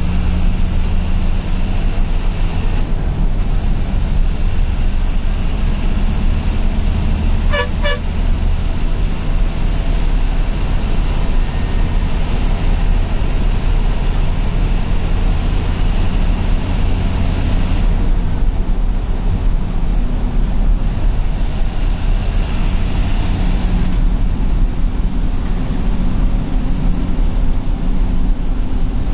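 Ashok Leyland bus's diesel engine running steadily under way, heard loud from inside the driver's cab, with two short horn toots about eight seconds in.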